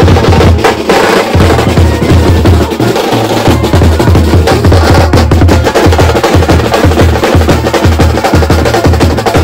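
Procession brass band playing, with fast, dense drumming loudest and wind instruments over it.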